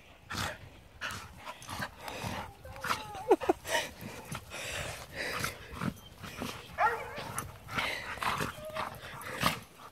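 Two dogs play-wrestling: scuffling and panting noises with a few short, high dog yips about three and a half seconds in and again about seven seconds in.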